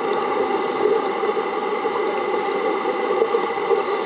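Steady underwater hum of the plant's running seawater intake pumps heard through the water, a constant drone with several held tones.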